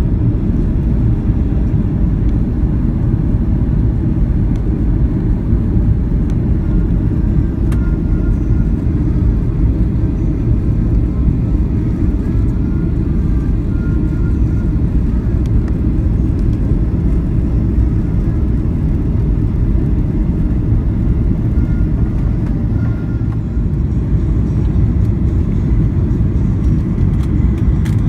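Airliner cabin noise during the landing approach: a steady low rumble of the engines and air rushing past the fuselage, heard from a passenger seat over the wing.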